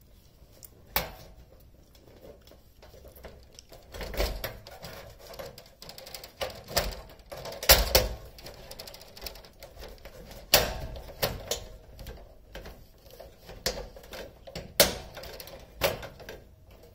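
Irregular clicks, taps and knocks of a 4-ft LED replacement tube being pushed and twisted into the sockets of a fluorescent light fixture, the loudest knocks about a third, two thirds and near the end of the way through.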